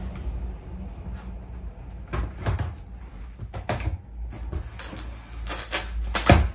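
Scissors cutting open the packing tape on a cardboard shipping box, with scraping and rustling of the cardboard: a run of short irregular scrapes and knocks, the loudest near the end.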